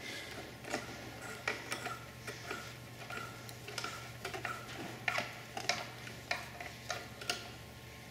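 A 3/32-inch Allen wrench turning the locking screw of a panel-mounted Garmin avionics unit, making small sharp metallic clicks at irregular spacing, about two a second, over a faint low hum.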